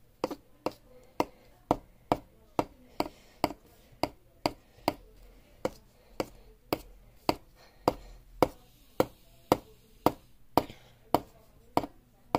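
Steady run of sharp chopping strikes, about two a second, as a hand-held cutting tool comes down again and again through a foil wrapper onto a stone countertop.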